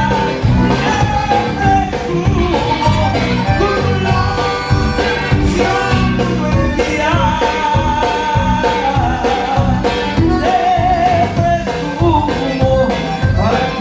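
Live conjunto band playing with a steady beat: button accordion and bajo sexto over bass and drums, with a man singing.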